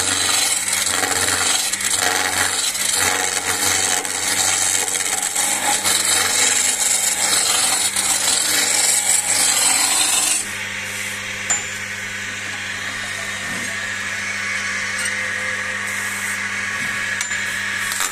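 A skew chisel cutting a long wooden spindle spinning on a wood lathe, a steady loud hiss of shavings peeling off over the lathe's low motor hum. About ten seconds in the cut becomes quieter, leaving the hum more to the fore.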